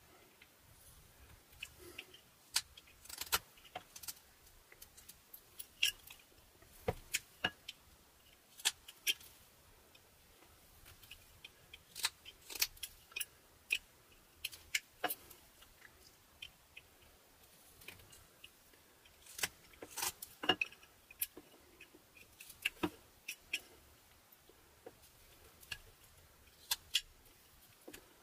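A small detail whittling knife making short slicing cuts into butternut wood held in the hand: an irregular run of sharp little clicks and snaps as the blade parts the wood, coming in clusters with brief pauses between.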